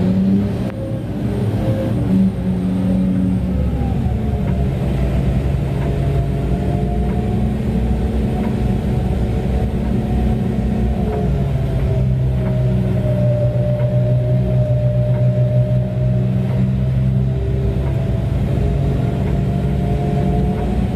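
Mining haul truck's diesel engine running steadily under way, heard from inside the cab, a deep continuous drone. Its note settles lower about halfway through.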